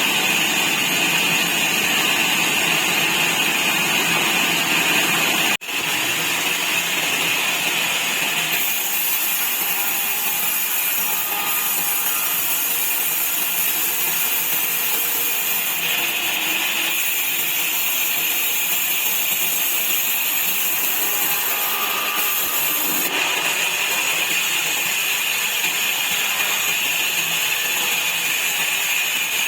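Sawmill saw running and cutting wood into slats, a steady loud machine noise with a brief break about five and a half seconds in.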